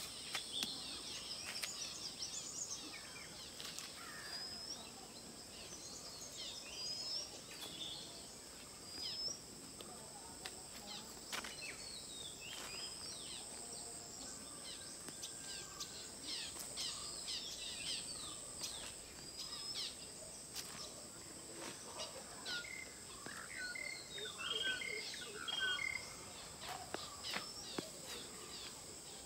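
Many wild birds chirping and calling over a steady, high-pitched drone of insects. The bird calls grow busier a little before the end.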